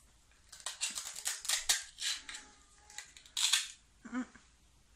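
Toy play-food tomato being cut apart with a toy knife, its pieces coming apart with a crackly rip in two bursts: a longer one from about half a second to two seconds in, and a short one about three and a half seconds in.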